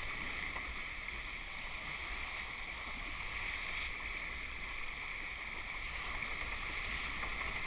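Steady rush of water along the hull of a 29er skiff sailing at speed, with wind noise at the camera.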